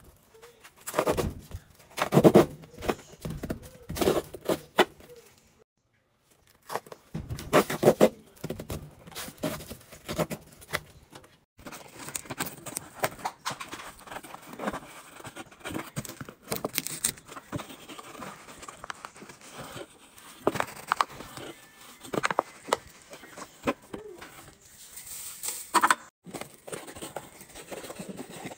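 Cardboard detergent box being handled and opened, with scattered knocks and rustles. From about a third of the way in, a plastic scoop digs into powdered laundry detergent with a continuous gritty crunching.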